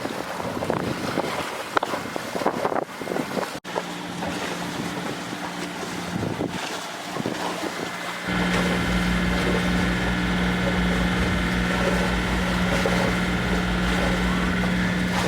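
Wind buffeting the microphone over water, then, about eight seconds in, a sailboat's inboard diesel engine running steadily with an even, fast low pulsing.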